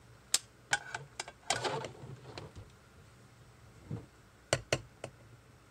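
Scattered clicks and knocks from a switched-off stick blender and a spatula being handled at a crock-pot of thick soap batter, with a short scraping sound about one and a half seconds in and two sharp taps near the end.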